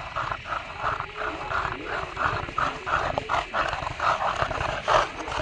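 Pocket bully dogs panting hard while running, quick even breaths several a second.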